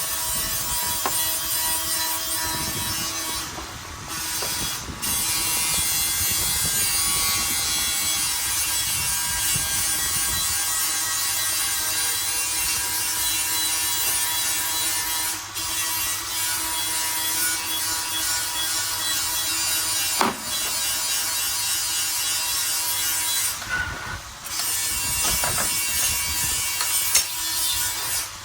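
A power tool working wood, running steadily with a few short pauses.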